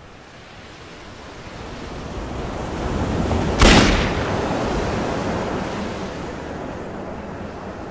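Surf and wind rising in a swell, then a single handgun shot about three and a half seconds in, after which the sea and wind slowly die back.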